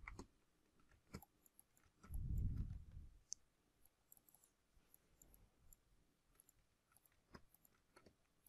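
Scattered light computer mouse clicks over near silence, with one brief low rumble a little over two seconds in.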